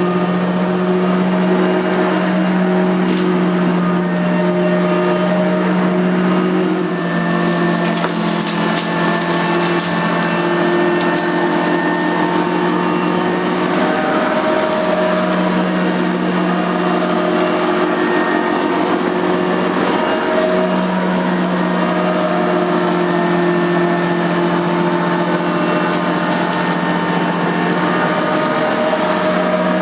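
Nilco 271 commercial upright vacuum cleaner running steadily while vacuuming, its motor hum dipping briefly in pitch a few times. A brighter hiss joins from about seven seconds in and fades out about seven seconds later.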